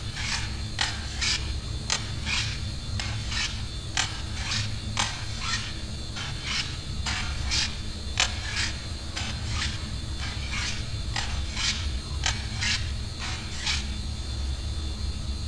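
Repeated rasping scrapes, about two a second, over a low steady rumble; the scrapes stop shortly before the end.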